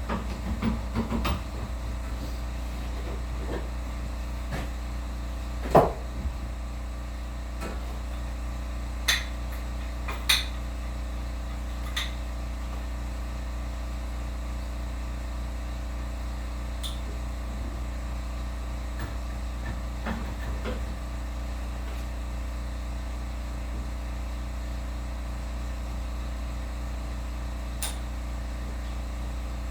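A steady low machine hum with a scattering of sharp metallic clicks and knocks, the loudest about six seconds in. These are the sounds of the belt grinder's articulating work rest being adjusted and its handles tightened.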